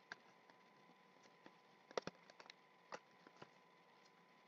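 Faint, scattered clicks and taps of hands working the doll's cardboard box and plastic packaging, with a small cluster of them about two seconds in.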